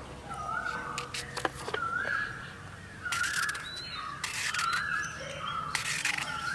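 Crows cawing repeatedly, about one harsh caw every second or so. There are a few sharp little crunches from a knife cutting an apple held in the hand.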